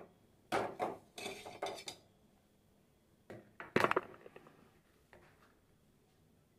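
A metal rod clinks against an aluminium pot several times as boiled PVC fittings are fished out of the hot water. A little after three seconds in comes a clatter, the loudest knock, as a hot PVC tee fitting lands on a stone floor, followed by a few light taps.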